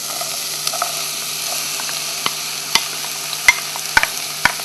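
Diced red pepper and courgette sizzling in olive oil in a saucepan as the courgette is scraped in from a dish with a wooden spoon, with a handful of sharp knocks from the spoon and dish, the loudest a little past halfway.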